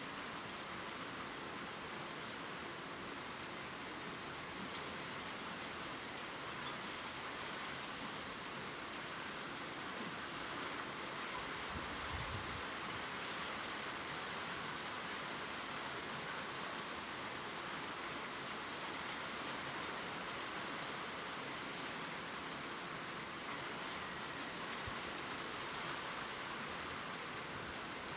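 Steady gentle rain falling on leaves, an even hiss with scattered faint drop ticks.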